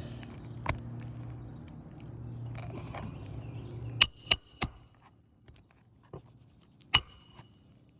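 Hammer driving roofing nails into asphalt shingles: a light tap near the start, a quick run of three ringing metal strikes about four seconds in, and one more a second before the end. A steady low hum stops about five seconds in.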